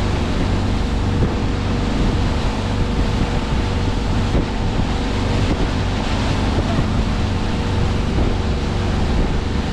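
Boat engine running steadily, with water rushing and wind buffeting the microphone.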